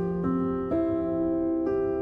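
Background music: a piano-like keyboard playing sustained chords, with a new chord struck about every half second to a second.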